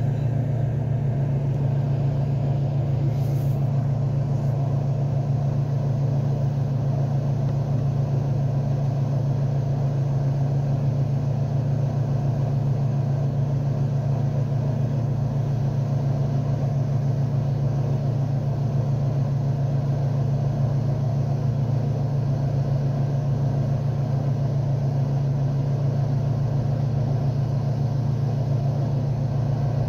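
Vehicle engine idling with a steady low hum, heard from inside the cabin.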